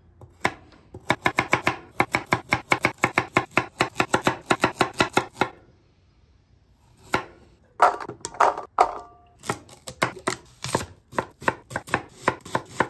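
Kitchen knife chopping carrots on a wooden cutting board: quick, even knocks of the blade on the board, about five a second, with a short pause around the middle before the chopping resumes. By the end the knife is cutting through an onion.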